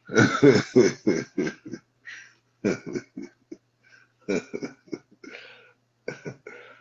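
A man laughing hard in bursts of short breathy pulses: a quick run of about six at the start, then shorter fits with pauses between.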